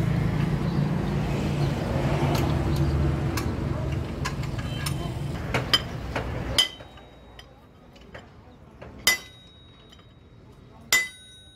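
A hammer strikes a steel drift bar held against the shaft of a Hino truck gearbox, driving a part onto the shaft during reassembly: three sharp metallic blows about two seconds apart, each leaving a high ringing tone. Before them a steady low rumble with voices in it fills the first two-thirds and cuts off suddenly.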